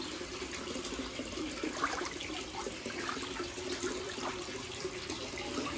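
Steady running, trickling water in an aquaponics fish pond, with small splashes from a hand moving through the surface.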